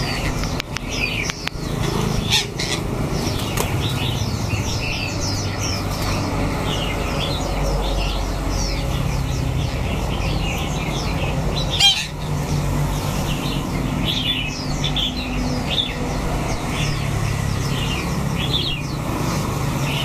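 Many caged birds chirping and twittering over one another in quick, short, high calls, over a steady low rumble of background noise. One sharp knock comes about twelve seconds in.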